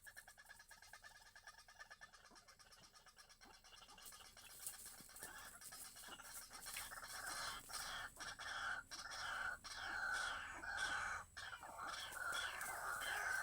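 Birds calling, faint at first and growing louder from about halfway in, with many quick falling notes repeated over and over.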